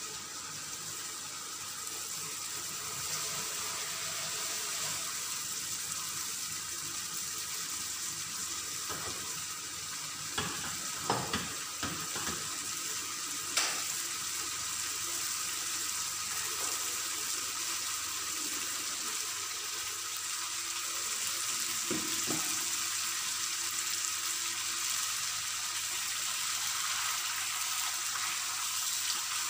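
Chicken breast simmering in bubbling sauce in a frying pan: a steady sizzle and bubble, with a few small pops and clicks partway through.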